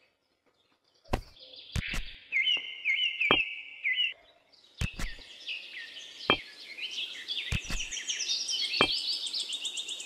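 Small birds chirping in quick repeated calls that thicken toward the end, with a few sharp knocks scattered through. It starts after about a second of silence.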